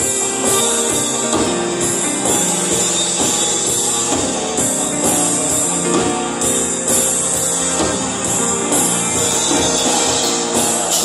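Live band playing a song: keyboard, guitar and drums with a steady beat and a tambourine-like shimmer, a woman singing into a microphone.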